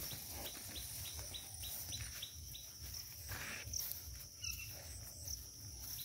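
Rural outdoor ambience: insects keep up a steady high drone, and a bird gives a rapid run of short falling chirps, about four a second, over the first two and a half seconds.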